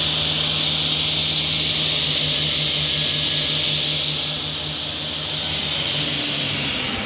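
Felder K 940 S sliding table panel saw running, a loud steady hiss over a low hum.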